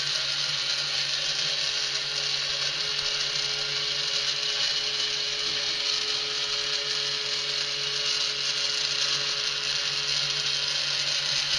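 K'nex battery motor running steadily, turning a Ferris wheel through a small red gear that meshes with the plastic gear chain round the wheel's rim: an even, unbroken mechanical whir.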